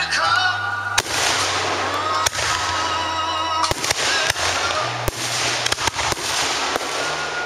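Aerial fireworks shells bursting in a display: repeated sharp bangs, roughly one or two a second, over a constant noisy crackle, with music playing in the background.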